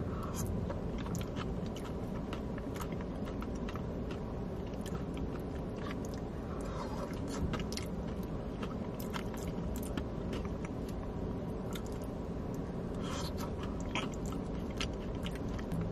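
Close-up chewing and mouth sounds of a person eating a Wendy's bacon cheese baked potato, with frequent small clicks over a steady low background hum.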